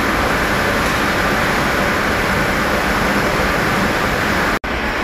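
Loud, steady rushing background noise with no distinct events, broken by a split-second dropout near the end.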